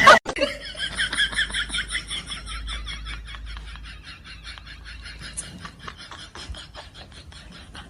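Laughter: a long run of quick, repeated breathy laughs that slowly fades.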